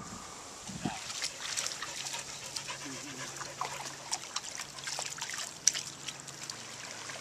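Dogs wading in shallow lake water: faint splashing and trickling, with scattered small splashes.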